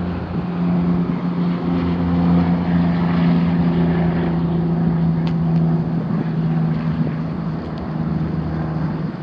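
Rooftop HVAC equipment running: a steady machine hum with the whoosh of a fan.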